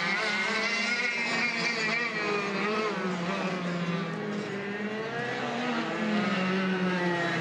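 Go-kart engines running, their pitch rising and falling as they rev. The sound cuts off suddenly near the end.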